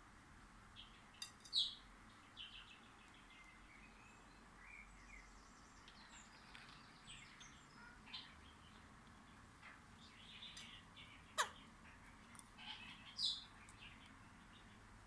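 Pet parakeets (red-crowned kakariki and a budgerigar) giving scattered short chirps and calls, among them one sharp call that falls steeply in pitch about eleven seconds in.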